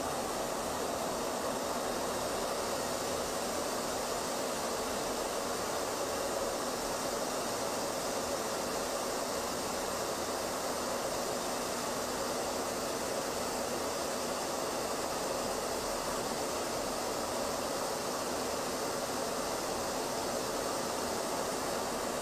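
Steady rushing noise of an aircraft in flight, airflow and engine noise as heard aboard the filming aircraft, even and unchanging throughout.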